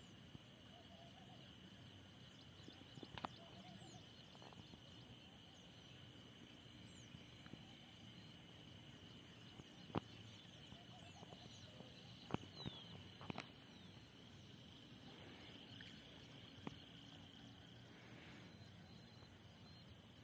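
Faint open-field ambience, close to silence: a steady high-pitched hum with a few faint chirps over it, broken by several sharp clicks, the loudest about ten seconds in and twice more a few seconds later.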